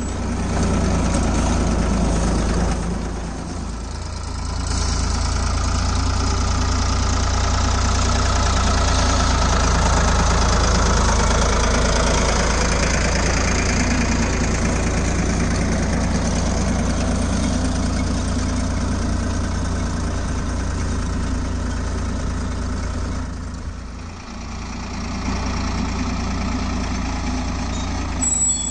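Ford 3600 tractor's three-cylinder diesel engine running steadily under load while pulling a seed drill through the soil. The sound dips briefly twice.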